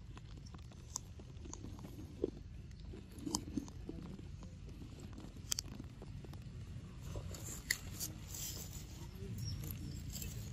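Scattered faint crackles and clicks of dry leaf litter, over a steady low rumble.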